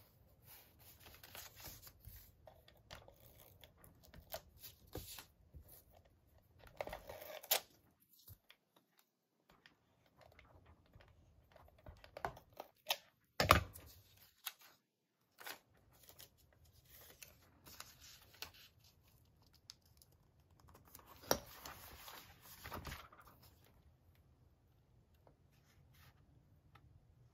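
Paper scraps being handled and pressed down onto a journal page, with an adhesive tape runner drawn across the paper: rustling and scraping broken by a few sharp taps, the loudest about halfway through.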